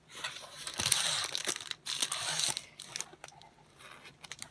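Crinkling and rustling of packaging as a rolled diamond painting canvas in its plastic sleeve is handled and drawn out of a cardboard box. The crinkling is loudest in the first two and a half seconds, then eases to softer rustles and a few light clicks.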